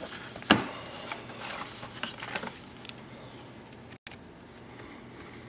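Wax-paper baseball card packs being lifted out of their cardboard box and set down on a wooden table: light rustling and small taps, with one sharp knock about half a second in.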